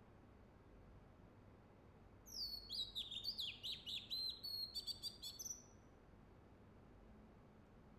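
Oriental magpie-robin singing one phrase of varied, high whistled notes, many sliding down in pitch, with a quick rattle near its end. The phrase starts about two seconds in.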